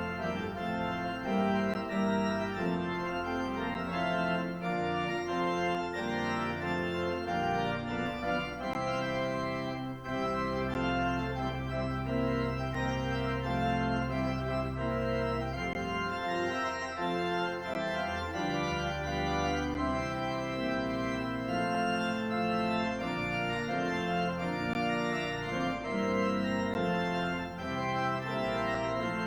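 Church organ playing the closing postlude: sustained chords move over held bass notes, with one long low note held for several seconds in the middle.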